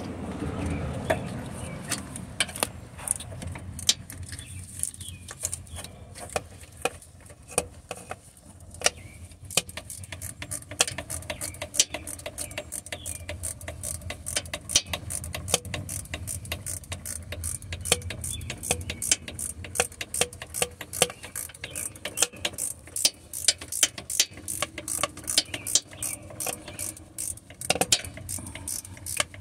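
Ratchet wrench clicking in quick runs as a torque mount bolt is turned, with scattered metal clinks from the tool.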